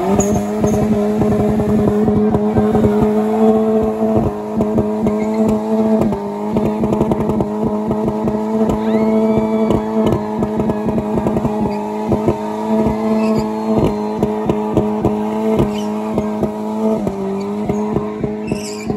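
Car engine held at high revs in a burnout, its spinning tyres squealing on the asphalt. The engine note stays at a steady pitch with rapid stutters and dips briefly a few times.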